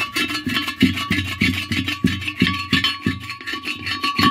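A piece of china scraping back and forth against the porcelain under a toilet bowl's rim, about three strokes a second. The strokes are scraping off stains and deposits that pumice did not remove. A steady high ringing tone runs under the strokes.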